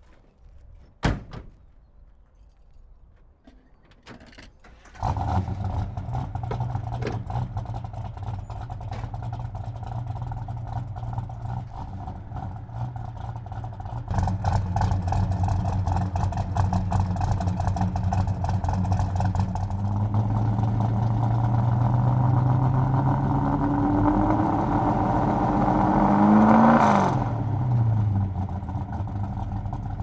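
A car door slams about a second in. A muscle car's engine starts about five seconds in and runs with a deep steady note. Later it revs up in a long rising whine that peaks near the end, then falls in pitch as the car pulls away over gravel.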